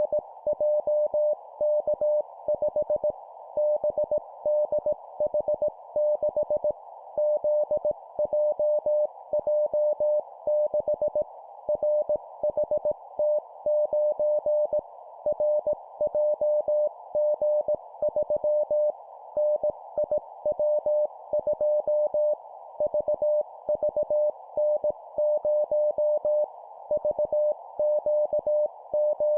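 Morse code (CW) practice tone sent at 17 words per minute: a single mid-pitched beep keyed in dots and dashes, spelling four-character groups of three letters and a number. It sounds over a steady band of hiss that stays on between the beeps.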